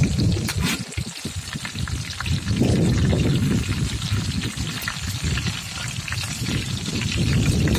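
Hot oil sizzling and crackling around whole vavval (pomfret) fish shallow-frying on a large flat pan, with oil ladled over them near the start. A steady low rumble runs underneath.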